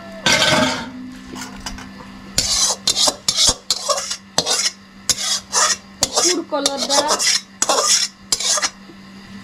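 A metal spoon scraping around the inside of a steel kadhai in many short, quick strokes, emptying it into a pot of rice. There is one sharp metal clank just before the scraping.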